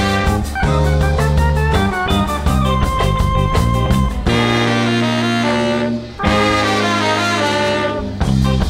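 Live band playing a reggae–tsifteteli fusion tune, with trumpet and saxophones over guitar, bass, keyboard and drums. About four seconds in, the beat drops out under long held chords, broken once by a short gap, and the beat comes back near the end.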